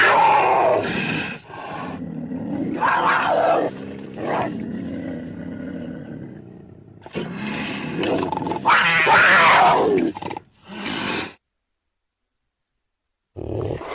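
Big-cat snarls and roars from black panther and cougar recordings: several loud, harsh outbursts with a lower, longer growl between them. The sound cuts off abruptly and drops to dead silence, then starts again just before the end.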